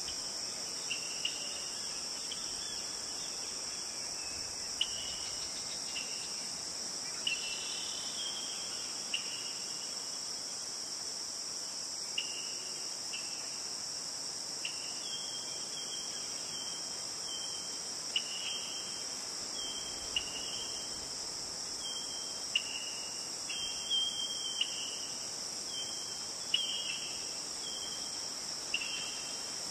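Steady high-pitched insect chirring, like a cricket chorus, with short high chirps scattered every second or two.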